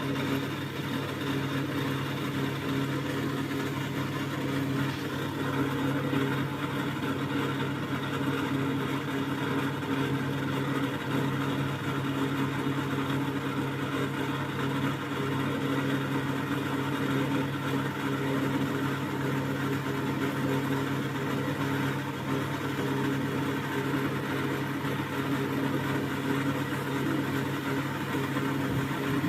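Thomson washing machine running with a steady, even motor hum.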